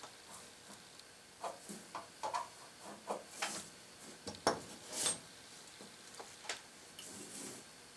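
Light, irregular clinks, taps and scrapes of small steel parts being handled and set down on a workbench, with a somewhat louder knock about four and a half seconds in.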